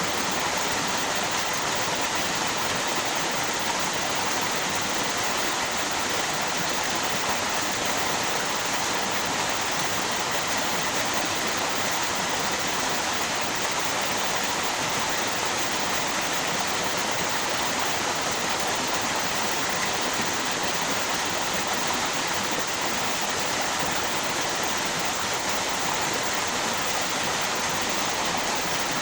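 Steady rush of flowing water from a river and waterfall, an even unbroken noise.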